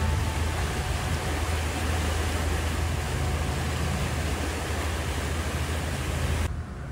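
Steady rush of wind and water from a boat moving across open lake water, with a low rumble underneath. It cuts off abruptly near the end.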